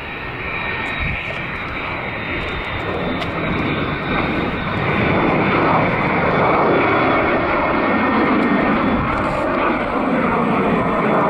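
Hawker 800-series business jet's twin Honeywell TFE731 turbofans at takeoff power through the takeoff roll and liftoff: a loud rushing jet noise with a thin steady high whine, growing louder about four seconds in.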